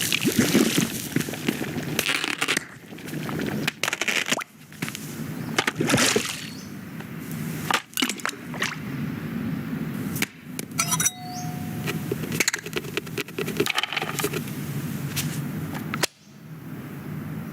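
Animated-film sound effects without dialogue: a run of separate knocks, clinks and clattering impacts, with a short pitched beep about eleven seconds in.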